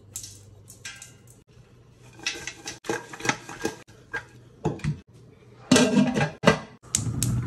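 Salt pouring into a stainless steel stockpot with a soft hiss, then the pot shaken so its contents slide and rattle against the metal. Near the end come the loudest sounds: sharp metal and glass clanks as the pot is handled and its glass lid is set on.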